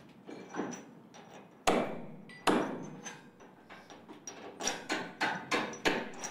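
Steel hardware clanking on a steel bridge girder as ironworkers work: two loud sharp strikes with a short metallic ring a couple of seconds in, then a quick run of lighter clinks near the end.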